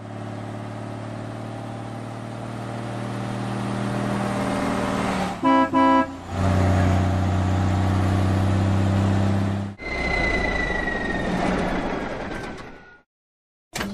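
Cartoon truck sound effects: a steady engine drone, two short horn honks about five and a half seconds in, then the engine again, louder. Near the end it gives way to a slowly falling whine over a hiss, which stops just before the end.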